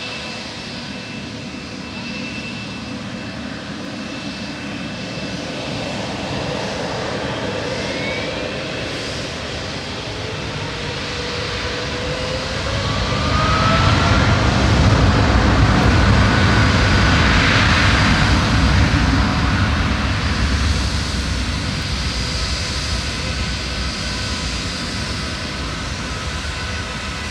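Boeing 777's twin jet engines spooling up with a rising whine, then a heavy low roar that swells about halfway through, is loudest for several seconds, and eases off as the jet rolls past.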